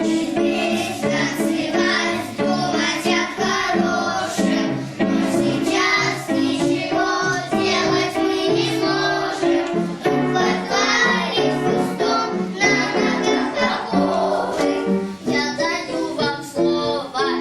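Children singing a song over instrumental accompaniment.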